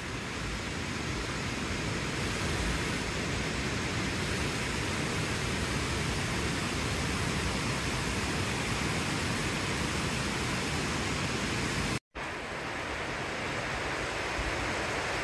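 Steady, even rush of water. It breaks off for a split second about twelve seconds in, then carries on.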